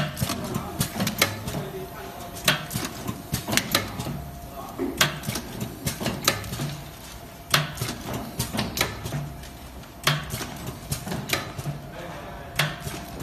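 Automatic flat-plate blister packing machine running through its cycle: a sharp mechanical clack about every second and a quarter, the louder ones every two and a half seconds, over a low rhythmic thumping and a faint steady whine.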